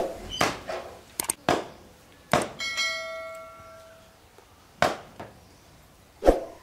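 Knocks and clatter of metal cooking utensils being handled. One strike a little over two seconds in sets a metal vessel ringing like a bell for about a second and a half.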